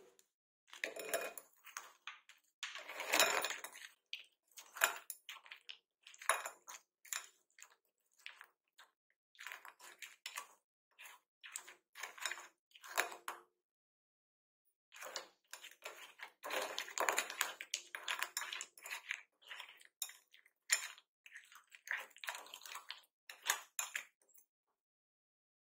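Ice cubes clattering against a glass bowl as a wire whisk stirs them through khoa: irregular bunches of knocks and rattles, with a short break a little past halfway.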